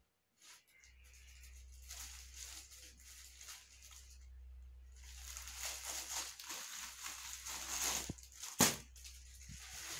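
Plastic packaging rustling and crinkling as plastic-wrapped sarees are handled and pulled out of a woven bag, busier in the second half, with one sharp snap near the end.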